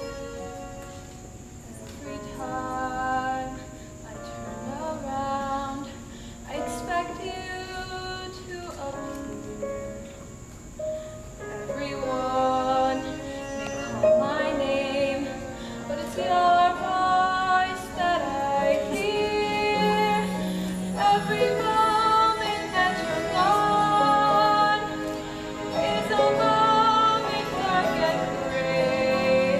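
A solo female voice singing a slow, sustained stage-musical ballad over instrumental accompaniment, growing louder about halfway through.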